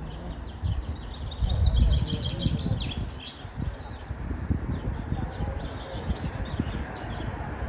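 Small birds singing, rapid runs of short high chirps, over a low rumble that swells about a second and a half in.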